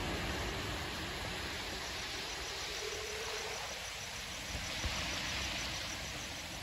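Steady rushing hiss of the flooded river's running water, with a faint, high, evenly pulsing chirp of crickets over it from about two seconds in.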